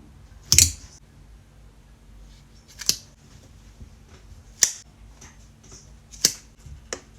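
Five sharp, crisp clicks, roughly one every one and a half to two seconds, with the last two close together.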